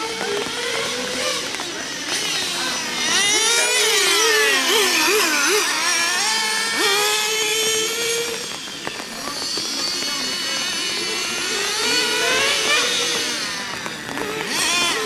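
Several 1/10-scale nitro RC cars racing, their small two-stroke engines giving a high-pitched whine. The overlapping engine notes rise and fall repeatedly as the cars accelerate and brake around the track.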